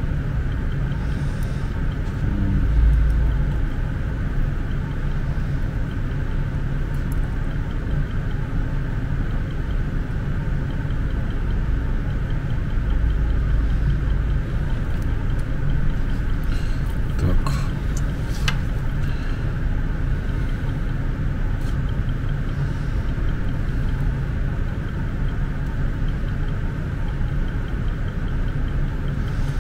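Steady low hum with a constant hiss behind it, and a few light clicks about halfway through.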